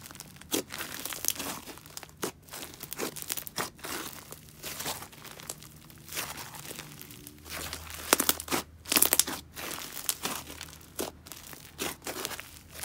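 Crunchy butter slime studded with foam beads being kneaded, pressed and stretched by hand, giving irregular crackles, crunches and small pops.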